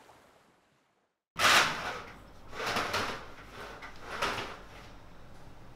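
Curtain being pulled along its rail at a window: a sudden rasping slide, then two more softer swells about a second and a half apart.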